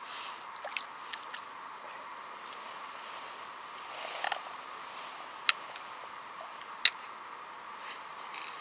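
A few brief sharp clicks and taps of hands handling gear, a tripod-mounted camera among it, over a steady faint outdoor hiss; the loudest click comes late on.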